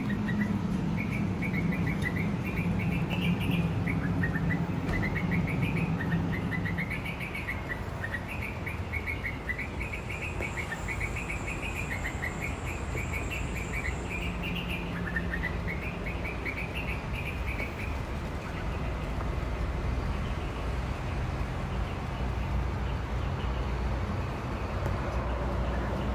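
Small birds chirping in quick repeated series over a low steady hum; the chirping fades out about two-thirds of the way through.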